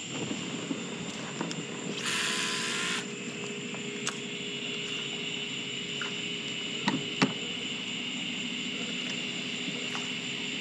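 Fishing rod cast from a kayak: a one-second hiss of line going out about two seconds in, then two sharp clicks a few seconds later, over a steady background hum.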